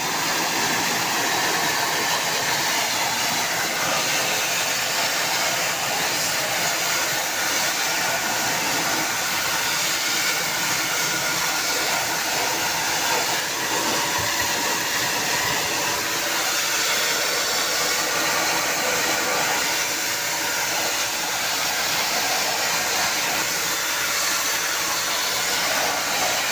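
Air conditioner running, a steady loud rush of blowing air that does not change.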